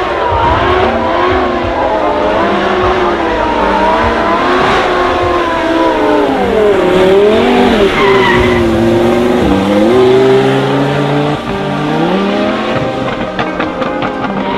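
Lamborghini Huracán drift car's engine revving hard, its pitch swinging up and down repeatedly with deep dips around the middle as the driver works the throttle through a slide, with tyres squealing and skidding on the wet tarmac.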